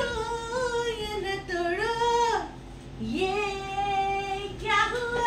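A single high voice singing long held notes, unaccompanied. The notes step down in pitch, then rise again after a short pause about three seconds in.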